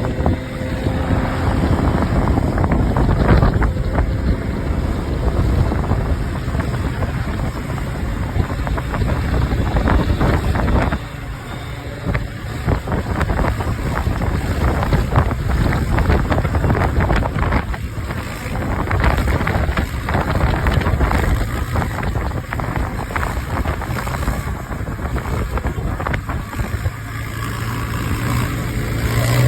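Yamaha Raptor 250 ATV's single-cylinder engine running while riding, mixed with heavy wind buffeting on the microphone. The sound dips briefly about eleven seconds in.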